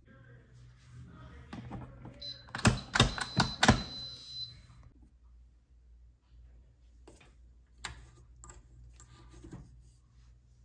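Kitchen clatter of utensils and cookware being handled: light knocks and clicks, then a quick run of four loud, sharp strikes with a ringing tone about three seconds in, and lighter clicks again near the end, over a low steady hum.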